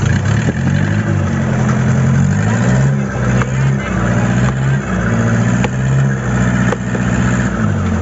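A fishing boat's engine running, its pitch wavering up and down, with sharp chops of a long knife splitting ice blocks, roughly once a second.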